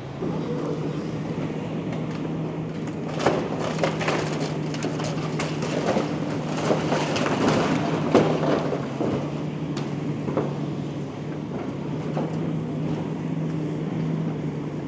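Komatsu demolition excavator working: its diesel engine runs steadily under crunching, clattering debris as it breaks into a building. The knocks and crashes come thickest from about three to ten seconds in.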